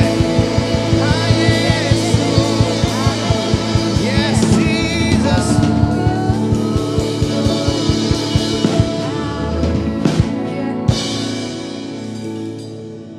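Worship band music in a rock style, with a steady drum beat, guitar and a wavering melodic line; the band thins out and gets quieter near the end.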